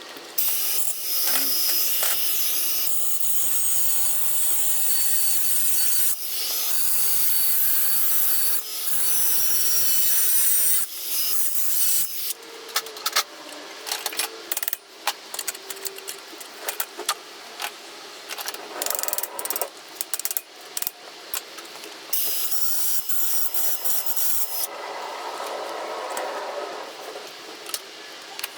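Steel being cut or scraped in long rasping stretches, broken in the middle by a run of sharp clicks and knocks as the metal pieces are handled, then more rasping near the end.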